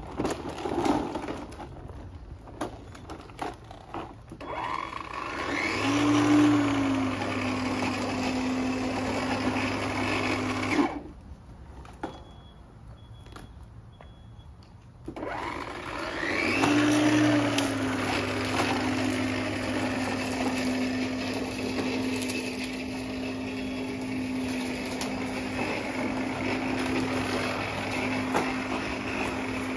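Worx 40V cordless electric lawn mower: a few knocks as it is wheeled, then its motor spins up with a rising whine about five seconds in and runs at a steady hum while cutting grass. The motor cuts off suddenly near eleven seconds, spins up again about four seconds later, and runs on steadily.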